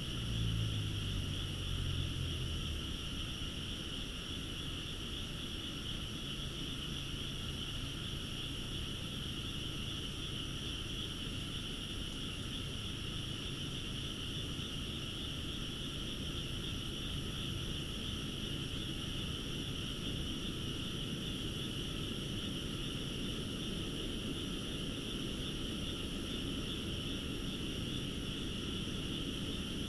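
Dense night chorus of frogs calling from rice paddies, a steady, unbroken high trill. In the first couple of seconds the low rumble of a freight train that has just passed dies away.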